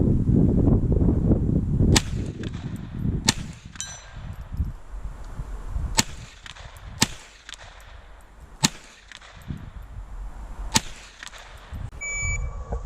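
Six single shots from a .22 rimfire IPSC Mini Rifle, irregularly spaced over about nine seconds, each sharp crack followed by a short metallic ring. Low rustling noise fills the first two seconds before the first shot.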